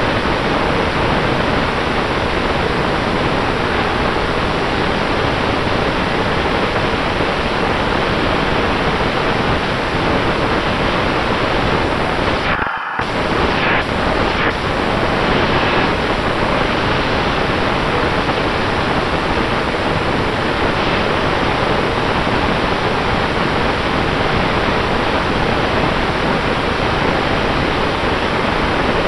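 Motors and propellers of a 5-inch FPV quadcopter in flight, picked up on board: a loud steady rushing hiss with a faint steady tone under it, cutting out for a moment about thirteen seconds in.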